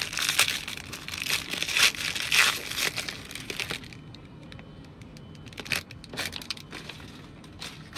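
Crinkly foil wrapper of a trading card pack being torn open and crumpled by hand, dense crackling for about four seconds, then fainter with a few scattered clicks.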